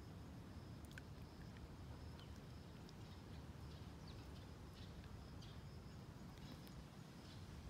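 Near silence: faint outdoor ambience, a steady low rumble with scattered faint high chirps and ticks.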